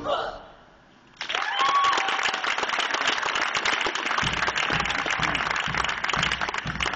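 The choir's final sung note fades out. About a second in, audience applause breaks out and goes on steadily, with a few shouts of cheering in it.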